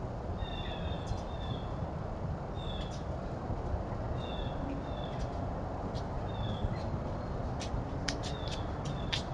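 Short, high bird chirps, some sliding downward, repeating every second or so over a steady low background hiss. A few sharp clicks come near the end.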